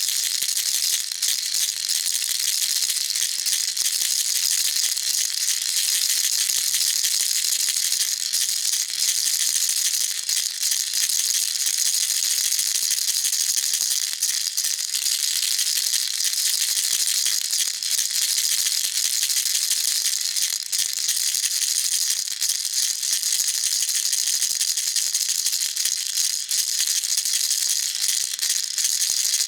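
Baby rattle shaken steadily without pause, a continuous dense bright rattling of small beads or pellets.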